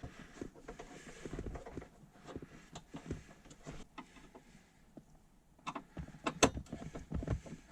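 Phillips screwdriver turning out small screws from a plastic car center-console panel: light scattered clicks and scrapes, with a quicker run of sharper clicks near the end.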